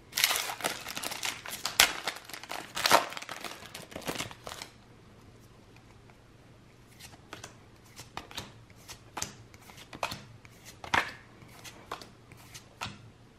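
Foil wrapper of a Pokémon trading card booster pack crinkling and tearing as it is opened, for about the first four and a half seconds. After a short pause, scattered light taps and slides of cards being handled and flipped.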